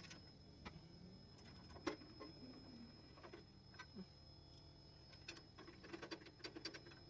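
Faint scattered clicks and small metallic taps of screws being fitted and driven with a screwdriver into the sheet-metal burner casing of a butane water heater, one a little louder about two seconds in and a cluster of them near the end.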